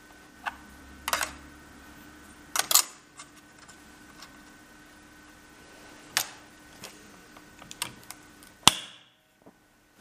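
Scattered sharp clicks and knocks of parts and tools being handled during a rotor blade test-fit, over a steady faint hum. A loud click near the end is followed by the sound dropping away.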